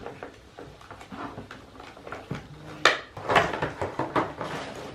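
A toy being worked free of its box packaging: rustling and scattered clicks, with one sharp click about three seconds in, then a busier stretch of rustling.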